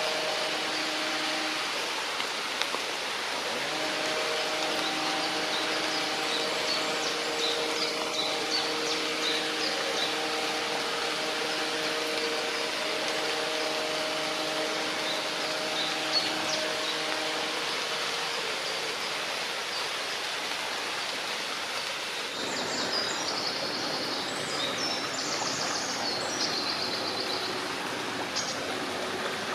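Stream water running with a steady rushing, with small birds chirping now and then. A steady droning hum with several pitched tones runs through the first half and stops, and a songbird sings a quick, busy phrase near the end.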